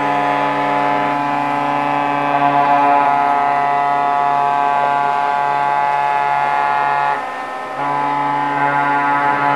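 Several ships' horns sounding together in one long, steady chord of overlapping tones, dipping briefly about seven seconds in and then resuming: the harbour's New Year salute.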